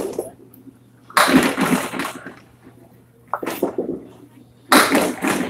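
Candlepin bowling balls striking wooden pins, with clattering crashes in three bursts: a long one about a second in, a short one past three seconds and a loud one near the end.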